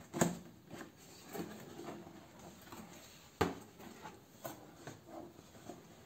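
Box being opened and unpacked by hand: scattered rubbing and rustling, with two sharper knocks, one just after the start and one about three and a half seconds in.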